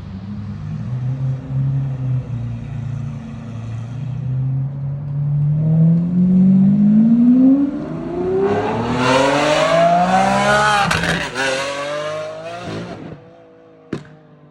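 Lamborghini Aventador SVJ's V12, breathing through a titanium exhaust, running at a steady low note and then accelerating hard, its pitch rising steadily for several seconds. The pitch dips sharply about eleven seconds in and climbs again before the sound breaks off suddenly; a single sharp click follows near the end.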